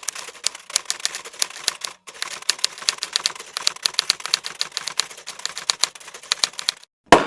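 Rapid typewriter key strikes clacking irregularly, several a second, with a short pause about two seconds in, then one loud single hit near the end.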